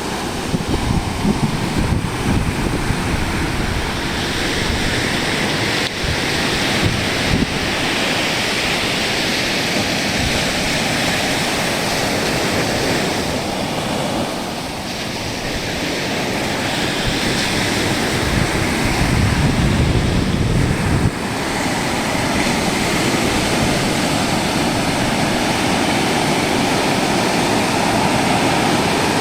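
Ocean surf breaking and washing continuously on a beach. Low rumbles of wind on the microphone come and go, strongest about twenty seconds in.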